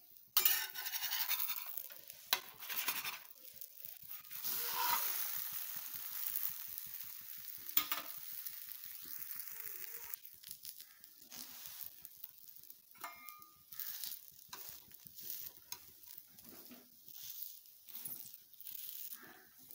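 Egg-and-vegetable batter paratha frying in ghee on a flat griddle (tawa): steady sizzling with crackles, strongest in the first half and easing to lighter crackling later. A few sharp clicks of a spatula against the pan come as the paratha is turned.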